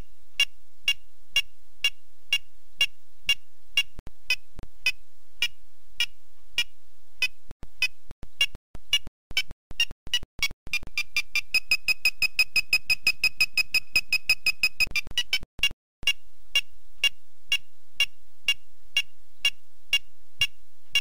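Electronic guidance beeps from a SpineGuard PediGuard pedicle probe, one short tone about twice a second. About halfway through they quicken into a rapid run for about four seconds, then return to the slow rate. The quickening is the probe's warning that its tip is nearing a breach of the pedicle wall.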